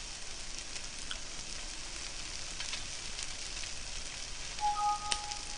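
Strips of pork jowl sizzling on a grill pan: a steady hiss with small scattered crackles. Near the end, a short electronic tone of two pitches sounds briefly over it.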